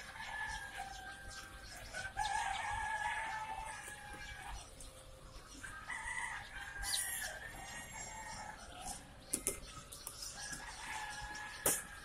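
A crowd of day-old chicks peeping continuously, many thin high calls overlapping into one steady chorus. A few sharp knocks cut through near the end.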